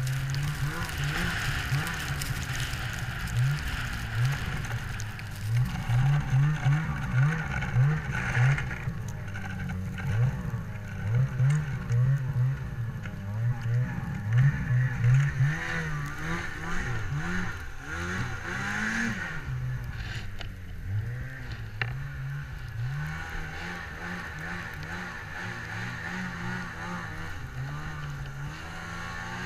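Ski-Doo 800 snowmobile's two-stroke engine running while riding through snow, the revs rising and falling over and over. The throttle blips are quick and close together through the middle, with slower, longer swells toward the end.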